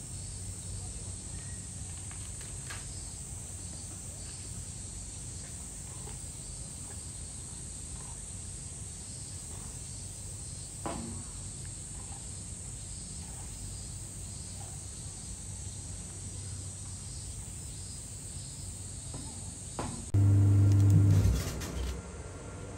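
Steady high-pitched insect chorus over a low outdoor background rumble. A single faint click comes about eleven seconds in. Near the end a much louder low hum lasts about two seconds.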